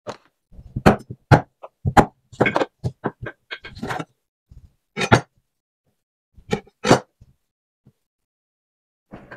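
Chef's knife knocking against a wooden cutting board as raw chicken legs are trimmed of their skin: a quick irregular run of knocks through the first four seconds, then a few single ones.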